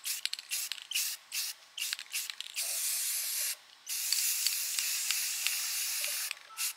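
Aerosol can of spray paint hissing in a quick run of short bursts, then two longer sprays of about one and two seconds, then short bursts again near the end.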